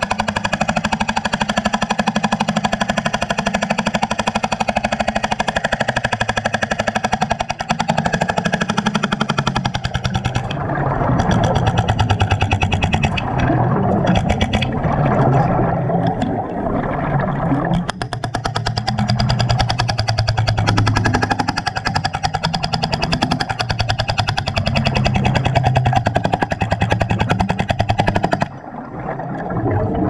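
BR45 hydraulic jackhammer hammering rapidly and steadily as it chips concrete underwater. The hammering stops shortly before the end.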